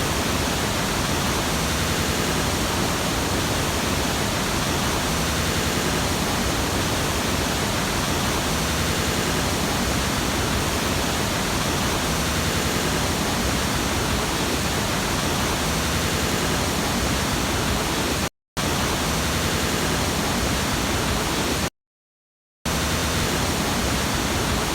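Mountain waterfall rushing, a steady, even roar of falling water. It cuts out briefly twice, once for a moment and once for about a second near the end.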